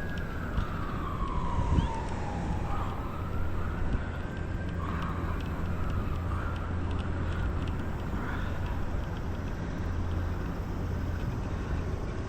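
A faint siren wailing, its pitch sliding slowly down over a few seconds, then climbing back and wavering, over a steady low rumble.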